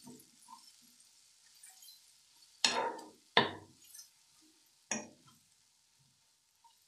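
Metal spoon stirring a thick masala in a non-stick kadai, knocking sharply against the pan three times: twice in quick succession about two and a half seconds in, then once near five seconds.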